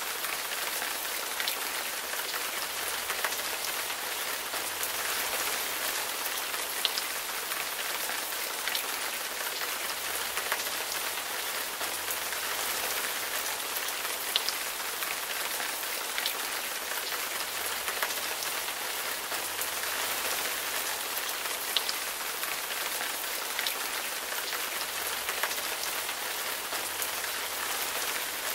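Steady rain falling on tree leaves, with a louder single drop striking every second or two.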